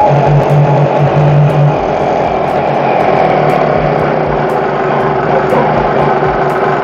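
Small Chinese two-stroke portable generator engine running steadily, with a strong low hum from the engine, loudest in the first couple of seconds.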